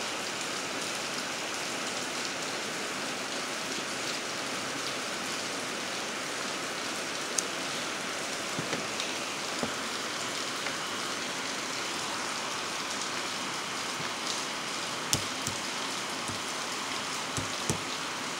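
A steady hiss, with several light clicks and taps of steel laminations as they are worked loose from a small transformer core by hand and with a knife.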